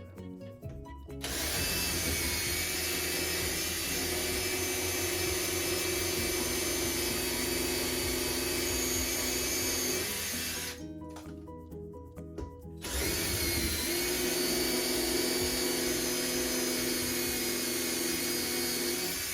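Power drill boring holes into the wall at the marked studs for a TV wall mount, running steadily in two long runs with a short pause between them.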